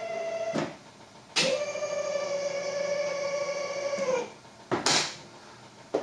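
Electric linear actuator driving the pop-up headlights of a Lotus Elan, converted from the vacuum system: a steady motor whine with a click where it stops about half a second in, then a second, slightly lower whine from about a second and a half to just after 4 s as the headlights rise, dropping a little in pitch and clicking off. A sharp knock near 5 s.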